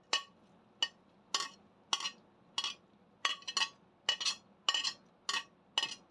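Metal spoon clinking against a ceramic plate while scraping chopped leek off it into a pot: about a dozen sharp clinks, roughly two a second, each with a short ring.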